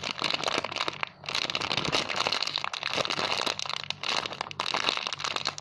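A foam squishy toy being squeezed and handled close to the microphone: dense crinkling and crackling, with two short pauses.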